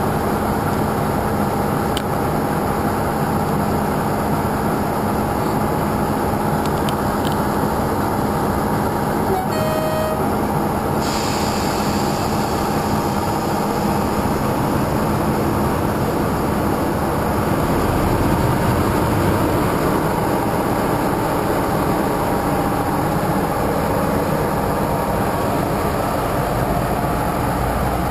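Class 45 'Peak' diesel locomotive with its Sulzer twelve-cylinder engine running at the platform, a loud steady drone. From about eighteen seconds in the low rumble grows stronger as the train moves off.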